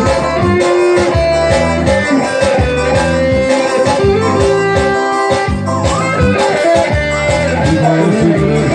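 Pisadinha (piseiro) band playing live: a steady, loud dance beat with a held-note melody line over it.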